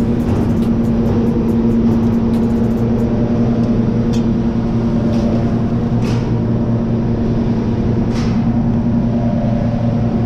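Steady drone of industrial machinery, a constant low hum, with scattered light clicks and a few sharper knocks.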